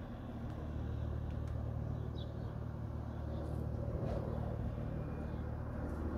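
Airbus H145 helicopter in flight overhead: a steady low rotor and engine drone that grows slightly louder.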